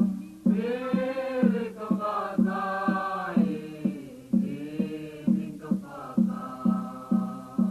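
Choir music: voices singing over a steady beat of about two beats a second.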